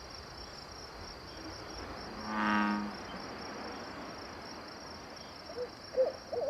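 Crickets trilling in a steady night chorus. About two and a half seconds in there is a single low, drawn-out animal call, and near the end an owl begins hooting in short notes.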